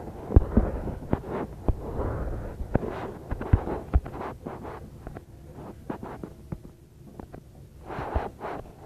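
Irregular rustling of craft materials being handled, with many sharp clicks and knocks scattered through it, busiest in the first few seconds.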